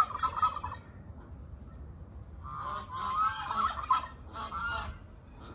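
Farmyard poultry calling: a short call at the very start, then a longer run of warbling calls from about two and a half to five seconds in.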